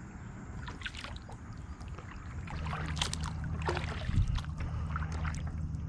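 Small fishing boat sitting on the water: scattered light knocks and lapping splashes against the hull, with a low steady hum joining about two and a half seconds in.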